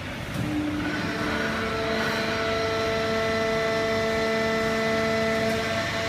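Fully automatic horizontal baling press for waste cardboard and its feed conveyor running: a steady machine whine of several held tones over a constant noise, the tones settling in about a second in.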